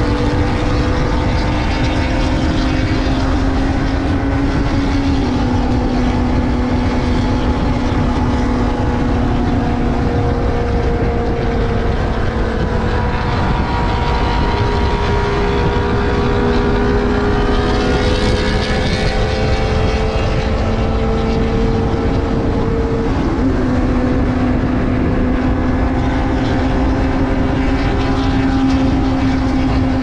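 Benelli TNT600i's inline-four engine running at a steady cruise while riding, dropping a little in pitch about five seconds in and rising again after about 23 seconds, over a constant low wind rush. A brief swell of hiss comes up about 18 seconds in.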